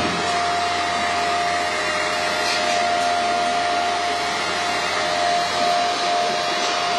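CO2 laser marking machine running while it marks a paper sheet: a steady whirring air noise with one constant hum tone through it, unchanging throughout.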